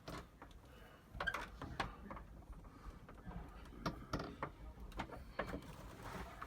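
Irregular clicks, knocks and light metallic rattles of a locksmith's tool being worked against a door's hardware, with a few sharper knocks about a second in and again near the four-second mark.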